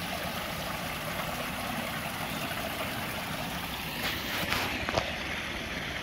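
Small rock waterfall splashing steadily into a koi pond, with a couple of light knocks about four to five seconds in.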